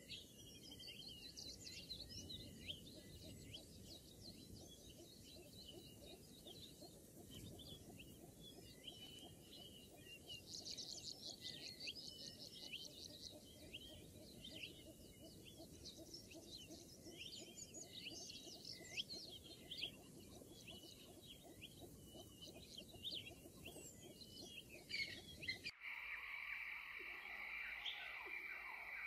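Faint birdsong: many small birds chirping and twittering over a low hiss. About 26 seconds in it cuts off abruptly and a steady high-pitched tone takes over.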